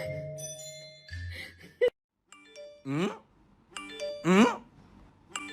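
Mallet-percussion music that fades and stops about two seconds in. After a brief gap comes a repeating pattern of short chime tones, each followed by a quick rising swooping sound, about every one and a half seconds.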